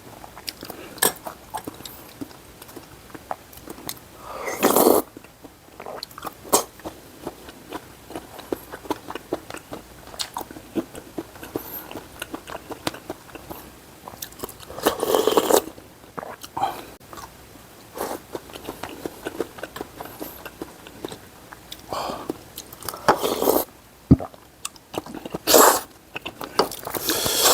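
Close-miked chewing and eating sounds: a steady run of small mouth clicks, with about five louder bursts of a second or less.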